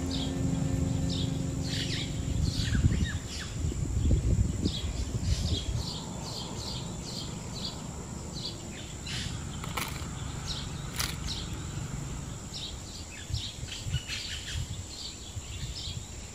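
Small birds chirping in short, high calls again and again, over a steady high-pitched whine. A low, uneven rumble is loudest in the first five seconds, and two sharp clicks come around the middle.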